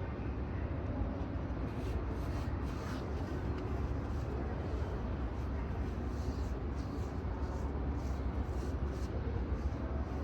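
Airport ambience: a steady low rumble of aircraft and airport machinery, with faint irregular high ticks from about two seconds in.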